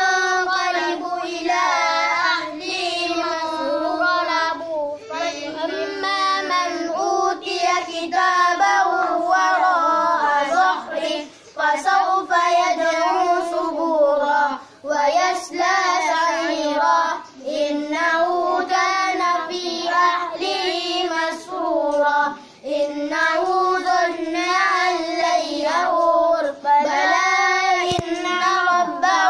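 A boy's voice reciting the Quran aloud in a melodic chant (tilawah), long drawn-out phrases with brief pauses for breath between verses.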